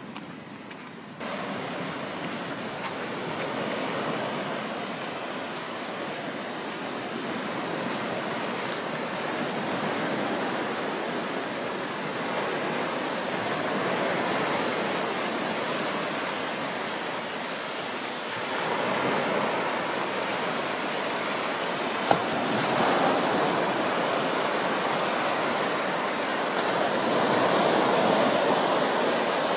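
Small sea waves breaking and washing up on a sandy beach. The surf starts about a second in and swells and eases every few seconds.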